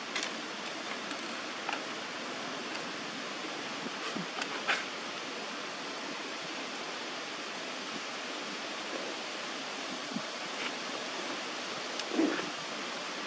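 Steady outdoor background hiss, with a few faint clicks in the first five seconds and a short, louder low sound near the end.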